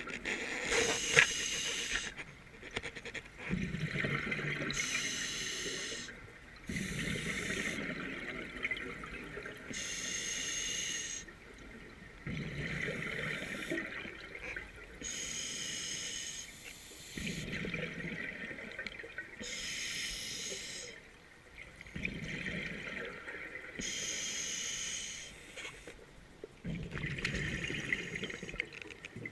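Scuba diver breathing through a regulator underwater: a hissing inhalation alternates with a bubbling exhalation, about one breath every five seconds.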